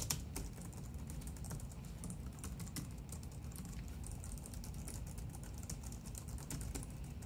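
Continuous rapid typing on a Logitech Craft aluminium keyboard: a dense run of light, quiet key clicks.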